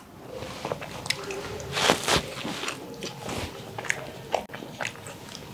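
Close-miked eating sounds: chewing and biting of food, with many small crackling clicks and a louder noisy burst about two seconds in.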